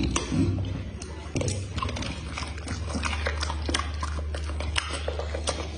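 A dog chewing food taken from a hand, with many quick wet clicks and lip smacks over a low steady hum.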